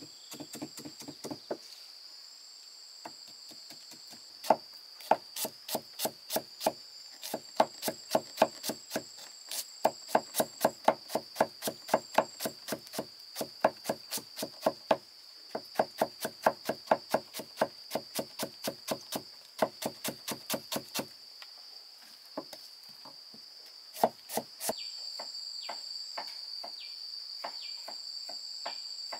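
Rhythmic chopping, a blade striking a wooden board about three times a second, with short pauses. It stops a little after two-thirds of the way through, then a few more strikes follow. Insects buzz steadily in the background.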